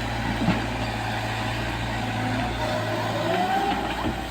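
Heavy vehicle engine running steadily, with a short whine that rises and falls about three seconds in.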